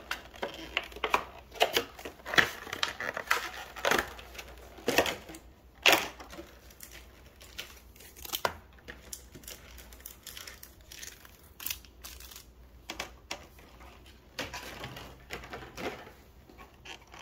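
Plastic packaging of a Pokémon trading-card collection box crinkling and crackling as it is handled and items are worked out of the plastic tray. The crackles come irregularly and are busiest in the first six seconds or so, then sparser.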